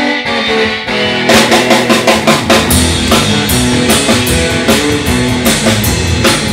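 Rock band playing live: the instrumental intro of a song, opening on guitar chords, with the drum kit coming in about a second in and the full band then playing a steady rock beat.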